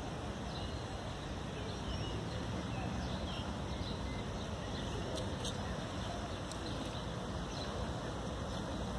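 Outdoor ambience: steady wind noise buffeting the microphone, with a few faint high chirps now and then.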